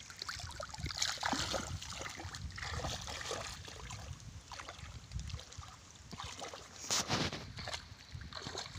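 Footsteps sloshing and splashing through shallow muddy water, one step after another, with a louder splash about seven seconds in.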